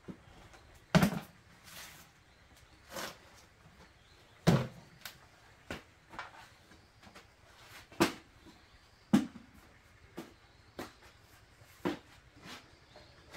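Irregular knocks and thumps of things being handled and set down, among them a plastic basin of greens placed on a brick stove top. There are about eight in all, the loudest about a second in and around the middle.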